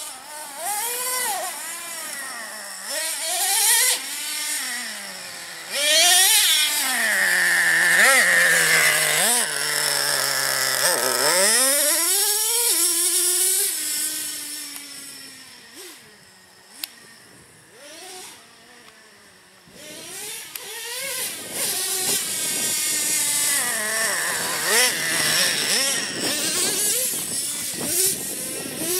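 Radio-controlled cars driving hard, their motors rising and falling in pitch with each burst of throttle. They drop away for a few seconds about halfway through, then come back.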